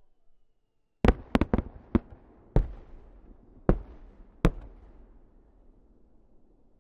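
Large 12-inch aerial firework shells bursting: a quick cluster of four loud bangs about a second in, then three more single bangs spread over the next few seconds, each echoing into a rumble that slowly fades.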